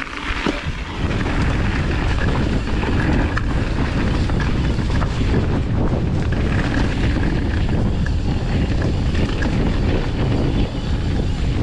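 Wind buffeting the camera microphone on a fast mountain-bike descent, with the tyres and bike rattling over the trail in scattered knocks. The rush builds up about a second in and then holds steady.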